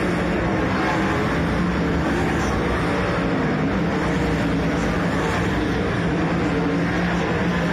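Sprint car's methanol-fuelled V8 engine running hard as a lone car laps the dirt oval in time trials. It is a loud, continuous engine note that holds nearly the same pitch throughout.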